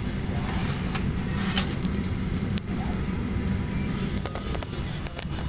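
Steady low drone of an airliner cabin, heard from inside the parked plane during boarding, with a quick run of sharp clicks about four seconds in.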